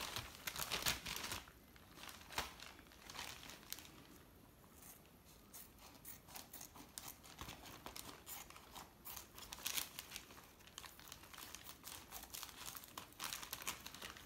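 Plastic courier mailer bag crinkling and crackling as it is handled and cut open with scissors, in irregular bursts, busiest in the first couple of seconds.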